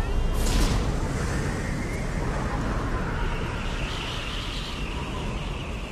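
Low rumbling machinery and rushing air as a large hatch in the floor beneath a glass holding cell opens onto a deep shaft. A short hiss comes just after the start, and a steady high hiss joins about three seconds in.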